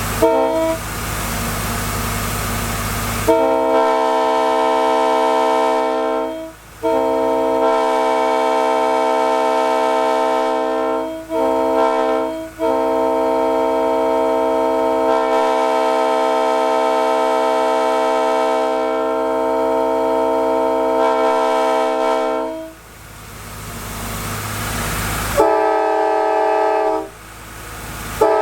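Multi-chime locomotive air horn blown in a series of blasts, several notes sounding together as one chord. Three shorter blasts lead into one long blast of about ten seconds, and a short blast comes near the end. A steady rushing noise fills the first three seconds and the pause before the last blast.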